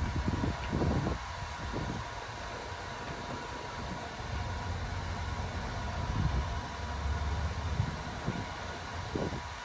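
Hair dryer running steadily, blowing air into an inflatable pool's air valve: an even hiss with a thin steady whine, and irregular low rumbles and bumps over it.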